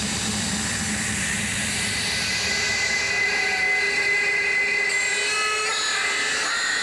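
Loud jet-engine-like rushing effect played through a dance sound system, with held electronic tones layered over it that step to new pitches near the end.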